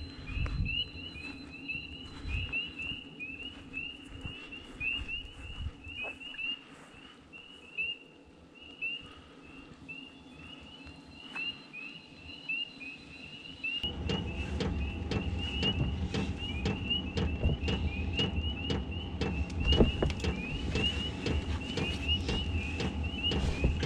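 A high chirping chorus of short rising chirps, several a second, goes on throughout. About fourteen seconds in, a louder low steady rumble comes in with scattered knocks and clicks: the camper's diesel heater running, heard from inside the truck camper.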